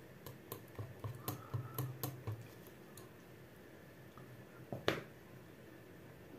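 Utensil clicking against a bowl while mixing a thick batter of egg, sour cream and flour: a run of quick light clicks, about four a second, over the first two and a half seconds, then a single sharper click just before five seconds in.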